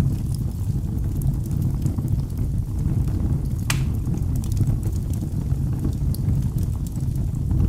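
Fire burning in a fireplace: a steady low rumble with faint scattered crackles and one sharper pop about halfway through.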